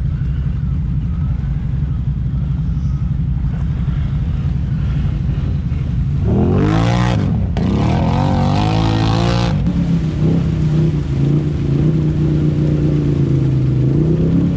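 ATV engines working through deep muddy water: a low steady rumble, then about six seconds in an engine revs hard twice, pitch rising each time, before settling into a steadier engine drone.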